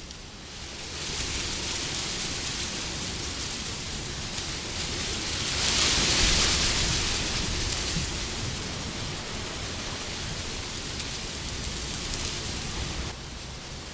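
Wind blowing, a steady rushing noise that swells into a louder gust about six seconds in and then eases off.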